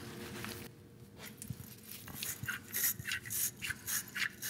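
Short scraping and rubbing strokes, about three a second, starting about a second and a half in: hands working old, corroded wiring connectors.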